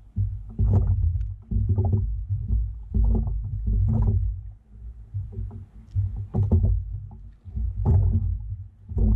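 Low, irregular thuds and rumbling from a plastic fishing kayak's hull, coming in bursts about once a second.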